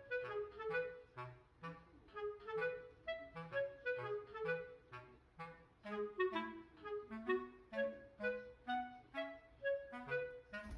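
Background music: a light melody of short, separate notes on a reed or woodwind-like instrument, about two notes a second.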